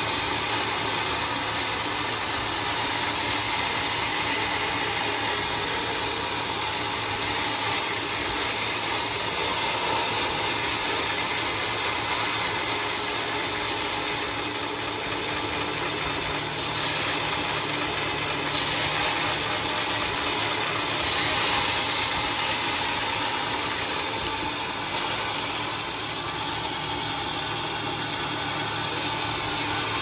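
Homemade band sawmill running with a steady mechanical noise.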